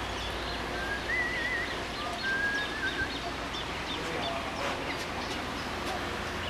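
A bird calling with a few short whistled, warbling phrases over a steady low hum.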